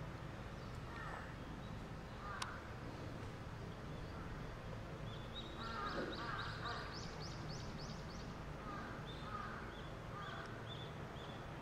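Birds calling outdoors: short calls repeated every second or two, and a rapid series of high chirps from a small bird about five seconds in.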